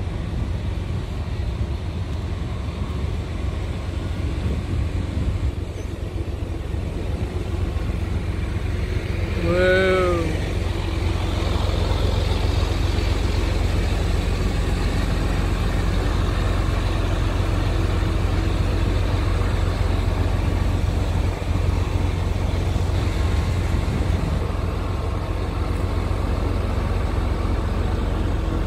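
Steady low outdoor rumble of vehicle noise, with a brief tone that rises and falls in pitch about ten seconds in.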